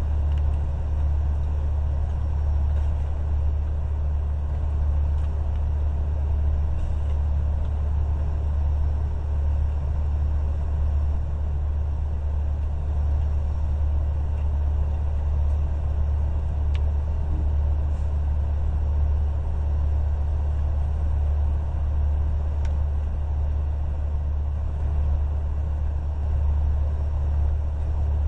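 Steady low rumble of an idling truck engine, unchanging throughout, with a few faint clicks over it.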